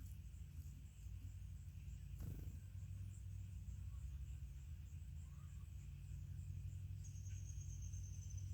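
Outdoor ambience at a bird feeder: a steady low rumble, a sharp click about two seconds in, and a small songbird's thin high whistle, held for about a second and a half near the end.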